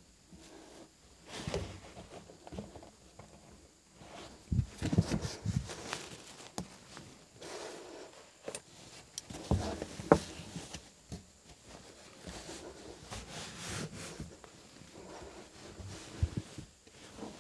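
Molded truck floor carpet with a felt backing being lifted, folded back and pressed onto the cab floor by hand: irregular rustling and scraping with scattered soft knocks, the sharpest about ten seconds in.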